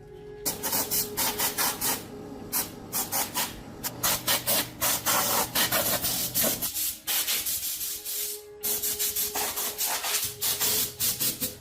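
Quick repeated abrasive strokes by hand, a few per second, like rubbing a part with an abrasive, with a short pause past the middle.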